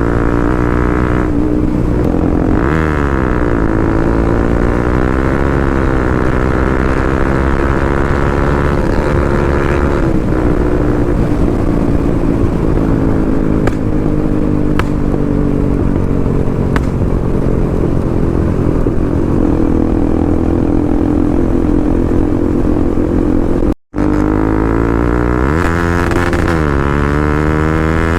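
Motorcycle engine running while riding, its pitch rising and falling several times as the revs change. The sound cuts out for a moment near the end.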